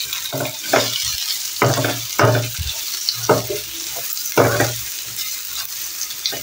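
Chips and chicken sizzling in hot oil in a metal frying pan, with a steady hiss. A metal spatula scrapes and turns them in repeated strokes, roughly one every half second.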